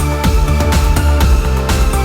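Electronic background music with a steady beat of about two beats a second and a heavy bass line.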